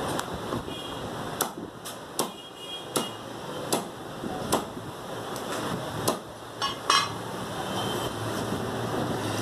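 A butcher's cleaver chopping mutton ribs into pieces on a round wooden chopping block: about ten sharp chops at an uneven pace, stopping about seven seconds in.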